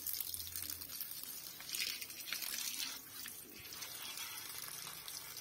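A thin stream of running water splashing steadily onto a wet stone slab and a plastic sheet, with a couple of brief louder splashy hisses about two seconds in.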